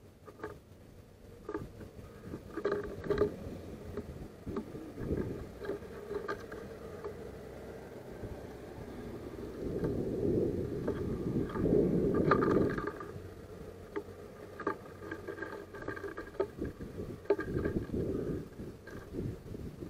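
House sparrows pecking and shuffling on a wooden feeder tray: irregular light taps and scratches on the wood from beaks and feet among the seed. A louder rushing noise swells from about ten to thirteen seconds in.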